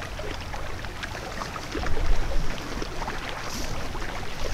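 Wind rumbling on the microphone over the rush of river water, with scattered small clicks and rustles of handling; a louder patch about two seconds in.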